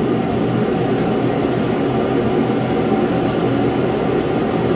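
Steady, loud roar of a portable shop heater running.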